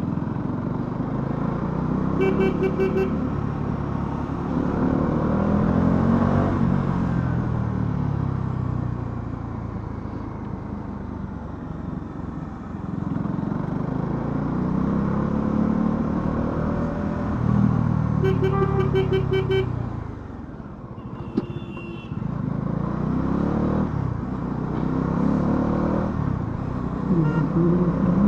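Bajaj Dominar 400's single-cylinder engine under way, revving up and falling back repeatedly through the gears. A vehicle horn sounds briefly twice, a couple of seconds in and again about eighteen seconds in.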